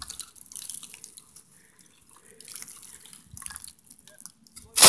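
Scattered light crackles and ticks of dry leaves and twigs being stepped on and brushed, with one sharp knock near the end.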